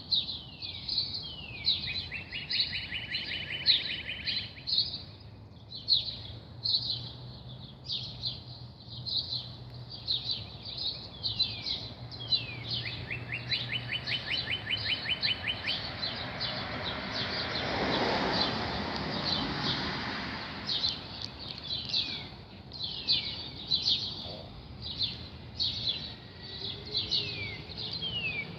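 Small songbirds chirping over and over in short, high notes, with a rapid buzzy trill twice. About two-thirds of the way through, a broad rushing noise swells and fades.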